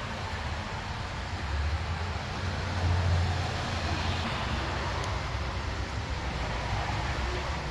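A 2000 Toyota Camry's 3.0 L V6 engine running with a steady low rumble that swells slightly about two to four seconds in.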